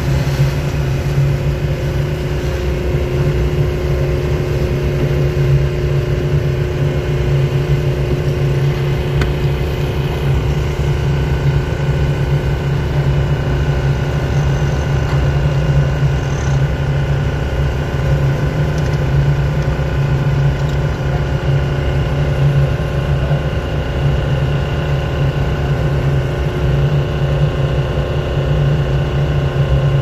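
Engine running at a steady, unchanging pitch: a continuous low hum with a faint hiss above it.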